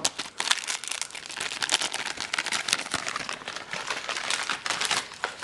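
Clear plastic MRE accessory pouch crinkling and rustling steadily in the hands as it is pulled open and its packets are handled, dying away near the end.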